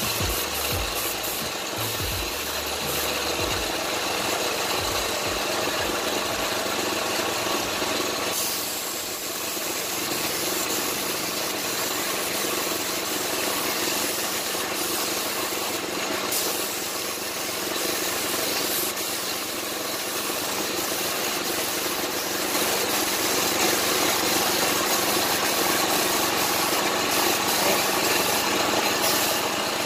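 Compressed air hissing steadily through a gravity-feed spray gun as it sprays clear coat at about 30 psi, with short dips where the trigger eases and a little louder in the last third.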